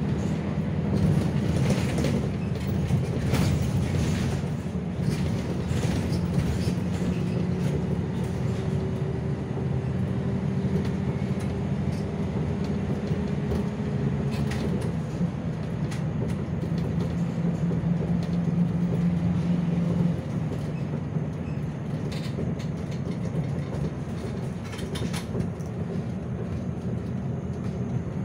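City bus engine running under way, heard from inside the cabin with road noise and scattered rattles. A faint whine rises slowly for several seconds, and the engine note drops about twenty seconds in.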